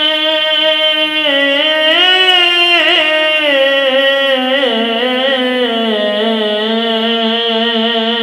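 A man's unaccompanied singing voice holding one long note of Urdu devotional verse. It stays level for about a second, then rises and wavers through ornamented turns, and steps down to settle on a lower note for the last few seconds.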